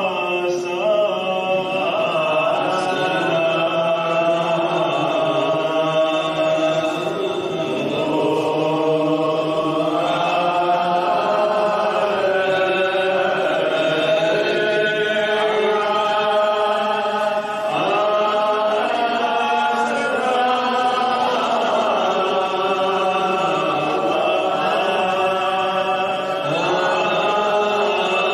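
A male voice chanting Arabic devotional salawaat in a long, unbroken melodic line, unaccompanied, into a microphone.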